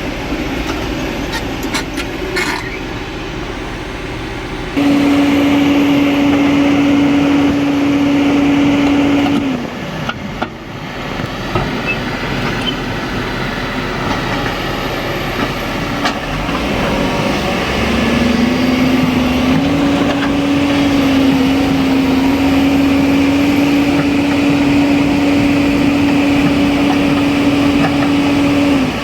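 Excavator engine running under load, with a steady whining tone that comes in abruptly for about five seconds, stops, then returns for the last ten seconds or so.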